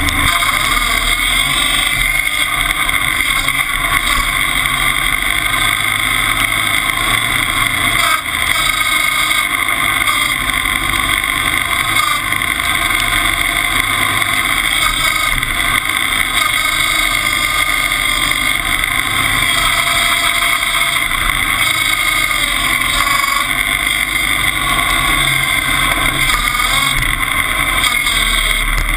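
Timberjack 201 log skidder's engine running steadily as the skidder drives across a field, heard close to its exhaust stack.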